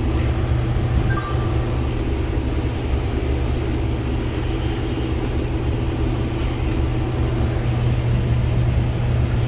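Case IH combine harvester running, heard from inside the cab: a steady, even low drone of the engine and machinery as it drives with a full grain tank.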